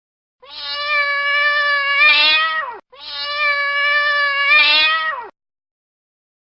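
Domestic cat giving two long, loud meows back to back. Each is held steady for about two seconds and then drops in pitch at the end. The two calls are identical: the same recording played twice.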